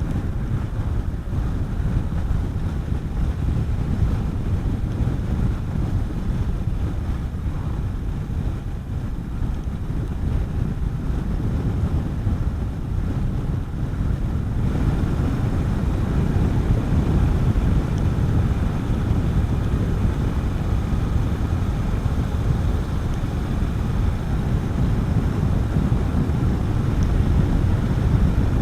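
Wind rushing over the microphone with a Honda CB400SS single-cylinder motorcycle engine running underneath while riding at road speed. It gets louder and fuller about halfway through.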